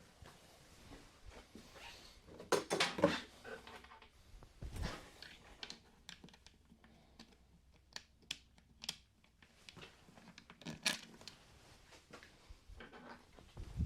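Scattered clicks, knocks and short scrapes of hand work on a motorcycle's plastic air filter cover as it is fitted back over the new filter.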